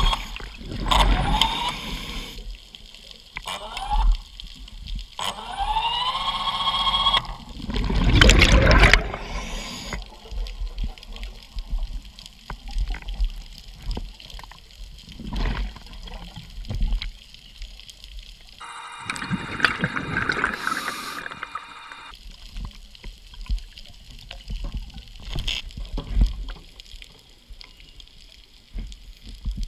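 Underwater sound of scuba diving with a diver propulsion scooter: the scooter's motor whines up in pitch several times in the first seven seconds, and exhaled regulator bubbles gurgle past in bursts, the loudest about eight seconds in and another around twenty seconds in.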